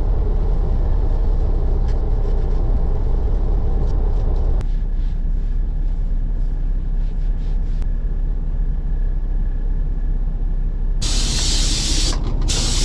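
Steady low rumble of a semi truck idling, heard inside its cab. Near the end, two hisses of an aerosol spray, the first about a second long and the second a little shorter.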